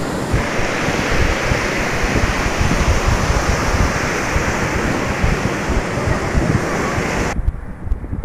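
Sea surf breaking and washing up the sand in a steady rush, with wind buffeting the microphone in gusts. Near the end the hiss of the surf cuts off suddenly, leaving the low wind rumble.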